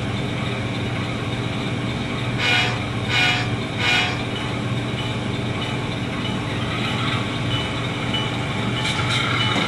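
Model locomotive sound decoder playing a GE FDL-16 diesel prime mover running steadily through its small speaker. About two and a half seconds in come three short horn blasts in quick succession, the signal for backing up.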